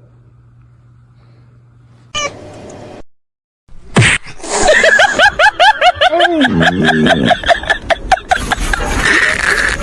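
A cat making a rapid run of short, rising-and-falling calls, several a second, with a lower, longer call partway through. It starts abruptly about four seconds in and is loud.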